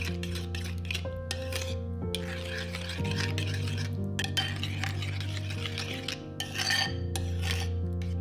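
A utensil stirring and mixing food in a bowl, with repeated scraping strokes and light clinks against the dish. Background music with low sustained notes plays underneath.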